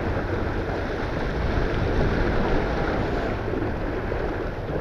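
Steady wind buffeting the microphone and water rushing along the hull of a small keelboat under sail.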